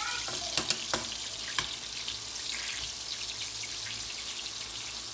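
Salmon frying skin-down in butter in a hot pan, a steady sizzle, with a few sharp clicks in the first two seconds.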